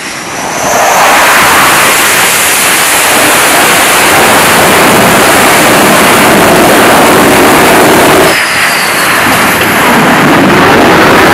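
F/A-18 jet engines running at full afterburner power on a carrier flight deck for a catapult launch: a very loud, steady rush of jet noise. It builds over the first second and dips briefly about eight seconds in before rising again.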